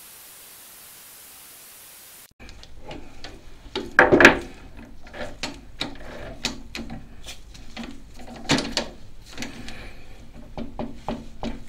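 A steady hiss for about two seconds, then irregular metal clanks, knocks and clicks: a lathe's four-jaw chuck being turned and its jaws tightened with a chuck key on a round metal workpiece. The loudest knock comes about four seconds in.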